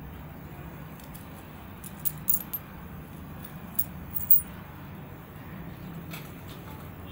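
Coins clinking against each other and the terrazzo floor as a hand stacks them: a few sharp metallic clicks about two to two and a half seconds in and again near four seconds, over a steady low hum.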